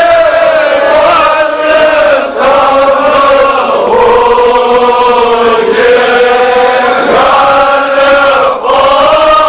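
A group of men chanting together in long held notes, the pitch sliding slowly up and down, with a few brief breaks for breath.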